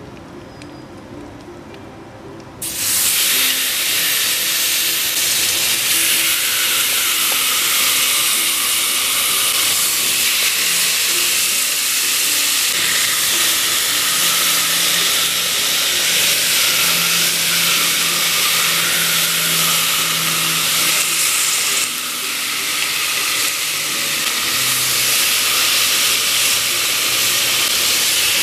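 Marinated chicken thighs sizzling loudly on a hot grill, a steady hiss that starts suddenly about three seconds in as the meat goes onto the grates.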